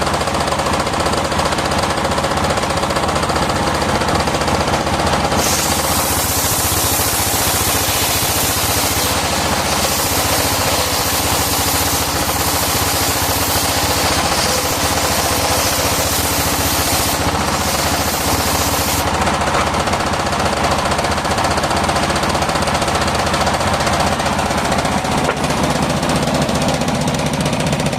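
Circular sawmill running continuously, its engine-driven drive knocking steadily. From about five seconds in to about nineteen seconds a harsh high hiss joins it, the blade cutting through wood.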